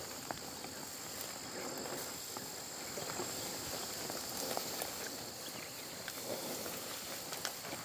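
Steady high-pitched insect drone, with footsteps and the swish of legs pushing through tall grass.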